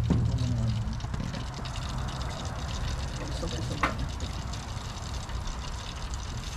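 Pork belly for lechon kawali sizzling and crackling steadily in hot oil during its second fry, the stage that crisps the skin. One sharper pop about four seconds in.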